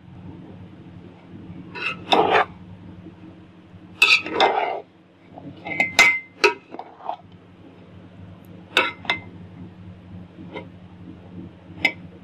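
A spoon scraping and clinking against a metal cooking pot while turning cooked rice, in irregular strokes every second or two, over a faint steady hum.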